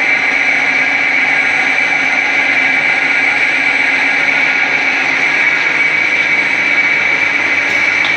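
Flat scourer-making machine running, a steady dense mechanical din with a constant high tone over it.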